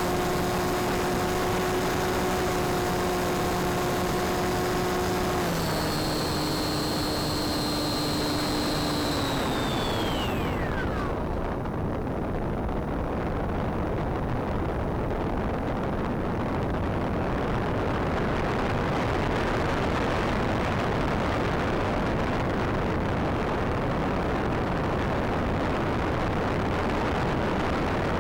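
Electric brushless pusher motor and propeller of a Bixler RC foam plane whining steadily. The whine steps down a little about five seconds in, then winds down with a falling pitch around ten seconds in and stops. After that only a steady rush of wind noise remains.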